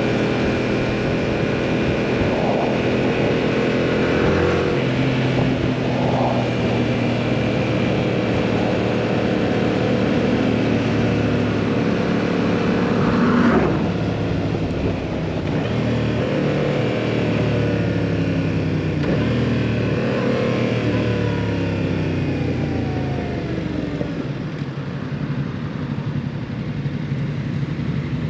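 Yamaha MT-07's parallel-twin engine through a full Akrapovič exhaust, riding under power. The revs rise and fall through throttle changes and gear shifts, loudest about halfway through.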